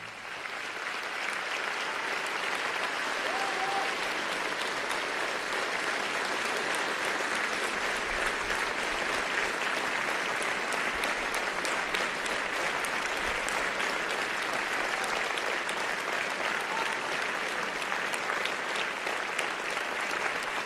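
Audience applauding: dense, steady clapping that swells over the first couple of seconds and then holds.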